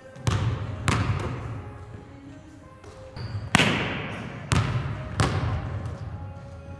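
Basketball bouncing on a hardwood gym floor: five sharp bounces, two close together near the start and three more after a pause, each with a long echo in the large hall.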